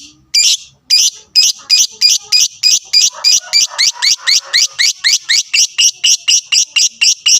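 Lovebird calling in a long run of sharp, high-pitched chirps, about two a second at first, then quickening to about four a second.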